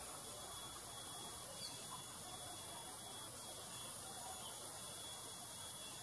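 Steady high-pitched insect drone, crickets or cicadas, forming an even hiss with a thin constant whine, and faint scattered chirps under it.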